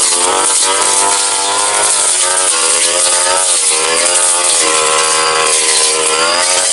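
Tasto TK 328G brush cutter engine running at high throttle through thick brush, its pitch repeatedly sagging and climbing back as the blade bites into the growth and clears it.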